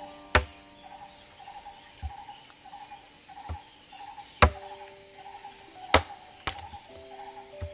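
Crickets and other insects chirping, with a steady high trill coming in about four seconds in. Four sharp knocks from work on a wooden log stand out above it.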